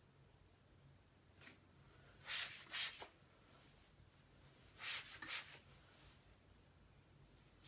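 Hand spray bottle spritzing water onto paper: three quick squirts about two and a half seconds in, then two or three more about five seconds in.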